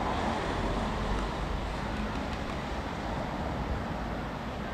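Tram pulling away from a stop, a steady low running rumble that slowly fades as it draws off, under general street noise.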